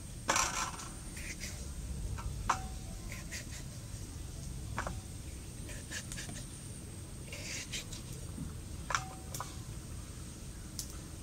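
Potatoes being cut by hand on a boti, a curved blade fixed upright in a wooden base: irregular crisp clicks and scrapes of the blade going through the potato, the loudest a scraping cut near the start. Two of the clicks are followed by a short ringing tone.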